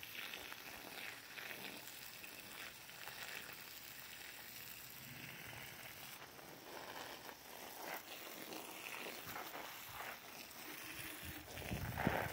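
Water from a garden hose spraying and splashing onto branches, leaves and soil, a faint steady hiss. There is a brief louder bump near the end.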